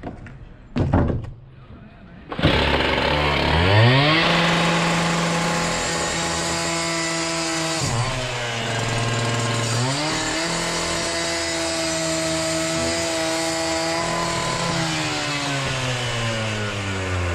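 A couple of knocks, then a handheld electric power tool, most like an angle grinder, spins up to a steady high whine. Its pitch sags for about two seconds partway through as it is put under load, recovers, and near the end falls away as the tool is released and winds down.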